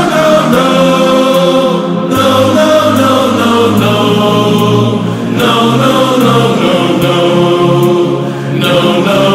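Background song: a singing voice over held accompanying chords.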